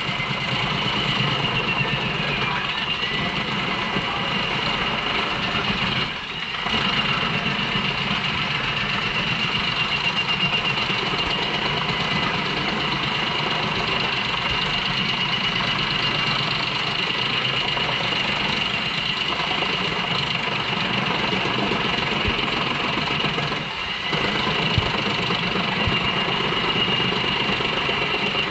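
JENZ HEM 593-R truck-mounted wood chipper running under load, chipping poplar logs fed in by its crane. It makes a loud, steady machine noise with a high whine, and the level dips briefly twice.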